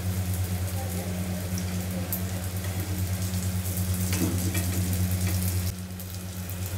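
Oil sizzling and crackling in a kadhai as skewered pasta snacks deep-fry, with a few sharp taps of a metal spatula against the pan. A steady low hum runs underneath and is the loudest sound. The sizzle dips briefly near the end.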